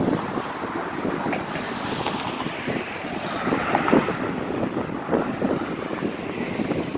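Road traffic: a car drives past close by, its tyre and engine noise swelling in the middle, with wind buffeting the phone's microphone.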